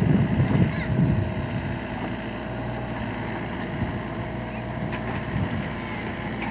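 LiuGong mini excavator's engine running steadily, with gusts of wind buffeting the microphone in the first second or so.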